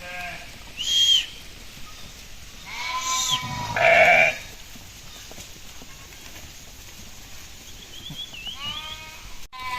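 Sheep bleating, several separate calls, the loudest about four seconds in.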